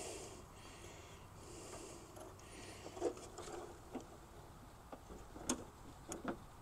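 A few faint, scattered metallic clicks and taps of a flare nut wrench working on a tight brake-line flare nut at an ABS modulator, over a faint hiss.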